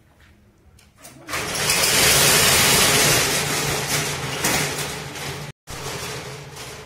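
A motor engine starts about a second in and runs loudly, then eases off to a quieter steady running sound.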